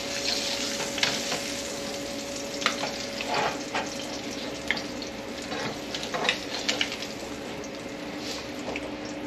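Butter sizzling in a nonstick frying pan as pieces of wahoo are lifted out with a spatula, with scattered clicks and scrapes of the spatula against the pan.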